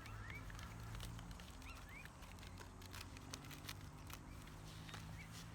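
Faint outdoor ambience: a few short rising chirps, scattered light clicks and ticks, and a low steady hum underneath.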